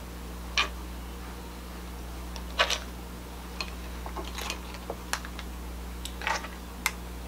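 King crab leg shells being cracked and picked apart by hand: scattered short sharp cracks and clicks, about eight over the stretch, over a steady low hum.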